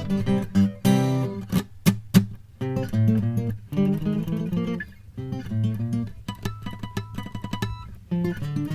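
Acoustic guitar music, strummed and plucked.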